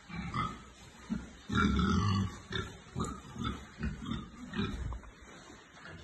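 Pigs grunting: a run of short, low grunts about two a second, with one louder, longer grunt about one and a half seconds in.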